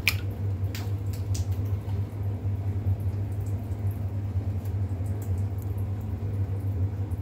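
A steady low hum, with a few light clicks in the first second and a half from a soy sauce bottle and steel spoon being handled.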